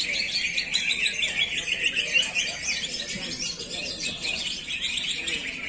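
Cucak ijo (greater green leafbird) singing a fast, continuous, chattering song of rapid notes in full flow, easing slightly for a moment after about four seconds.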